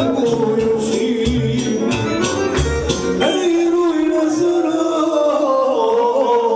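Live party music from a Korg keyboard with a programmed beat, and a man singing into a microphone. About three seconds in the beat drops out, leaving held keyboard notes under the voice.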